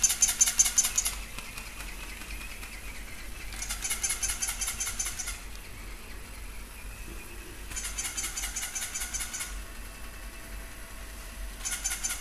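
Battery-operated plush toy going off in short bursts of rapid, high-pitched trilling, each about a second and a half long, repeating about every four seconds.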